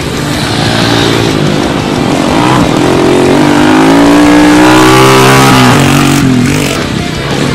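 Cub motorcycle engine revving hard off-road, its pitch climbing and loudest about five seconds in, then dropping sharply near six seconds.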